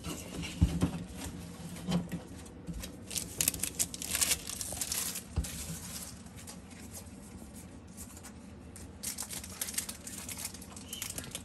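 Handling noise from Pokémon trading cards being picked up and moved on a table: light rustling and a few soft clicks and thumps. The rustling comes in two spells, about three to five seconds in and again near the end.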